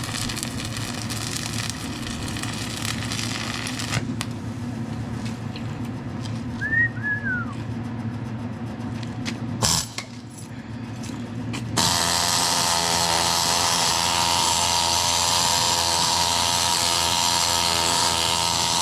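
Steady machine hum, then about two-thirds of the way through a stick-welding arc is struck and a quarter-inch 7018 electrode burns with a steady, loud crackling hiss.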